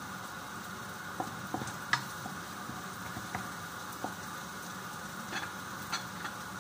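Minced garlic sizzling in hot oil in a nonstick wok, steady, with scattered light taps and scrapes of a wooden spatula stirring it.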